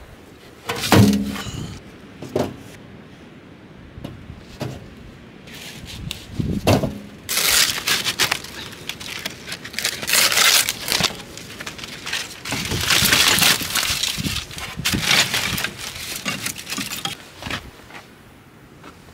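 Split wooden kindling knocking and clattering as it is handled, the loudest knock about a second in, then paper crumpling and sticks rustling and scraping as they are packed into a cast-iron firebox to lay a fire.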